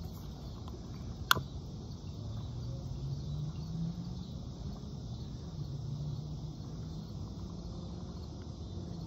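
One sharp click about a second in from the trigger of a long-neck utility lighter being squeezed to light an antique oil lantern's wick, over a steady high-pitched background of insects.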